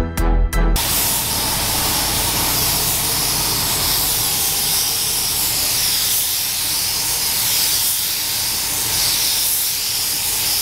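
Paint spray gun hissing steadily as it sprays base paint onto a car body. A few seconds of background music cut off under a second in.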